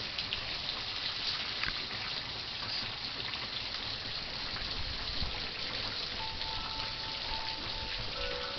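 Heavy rain pouring steadily, a dense even hiss of water, with wind chimes starting to ring softly about six seconds in.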